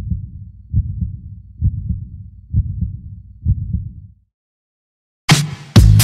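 Heartbeat sound effect: five slow, low double thumps about a second apart, then a second of silence before loud electronic dance music with a heavy beat cuts in near the end.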